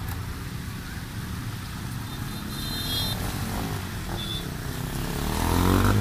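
Motorcycle and car engines running as the vehicles drive slowly through floodwater on a road. One engine gets louder near the end as it passes close.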